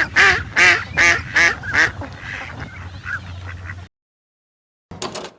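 Duck quacking: a quick run of about five loud quacks in the first two seconds, trailing off into fainter calls, then a brief separate burst of sound near the end.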